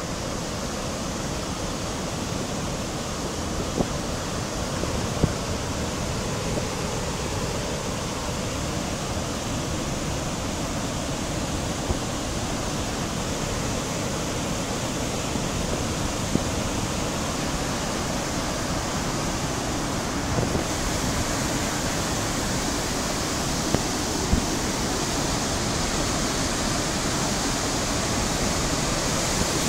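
Dam release water rushing through the spillway gates and churning into whitewater in the river below, a steady, unbroken rush of falling water.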